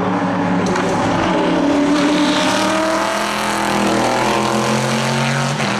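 Engines of several historic endurance racing cars running at speed on the circuit, more than one engine pitch heard at once, rising and falling as they change speed, with a sharp change near the end.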